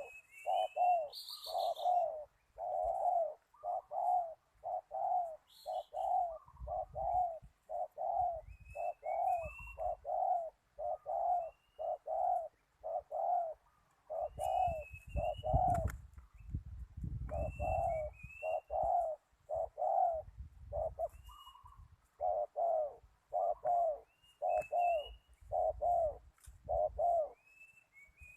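Spotted doves cooing steadily, a dense run of short coo notes, about one to two a second, with a brief pause a little past the middle. Thin high chirps of small birds come every few seconds, and low rumbling noise rises three times.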